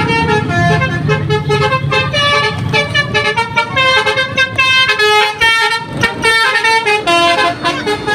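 A bus telolet horn: a multi-tone horn playing a quick melody of short notes that change pitch in rapid succession, with an engine running beneath for the first few seconds.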